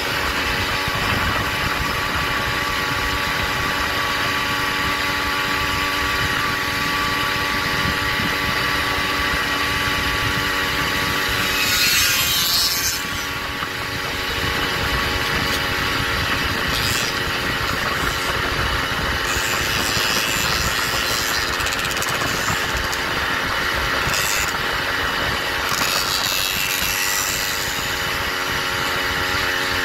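Motorized bicycle's small engine running at a steady speed while riding, with wind rushing over the microphone. About twelve seconds in there is a brief louder rush of noise, and the engine sound dips for a moment after it.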